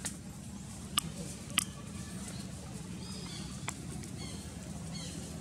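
Outdoor background with a steady low hum, a few sharp clicks (the loudest two about a second in and half a second later), and faint short high chirps in the second half.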